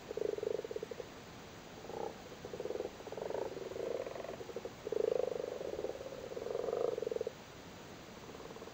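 Common frogs croaking in a low, rapidly pulsed chorus, several calls overlapping, until they stop shortly before the end: male frogs calling at spawning time.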